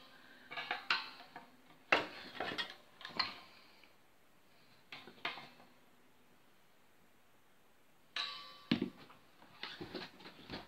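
Handling noise from an electric guitar with a Floyd Rose tremolo: a screwdriver clicking on the tremolo claw screws and the guitar body knocking as it is moved on the workbench, in several short clusters of clicks and knocks with quiet gaps between. The strings ring faintly under the first clicks.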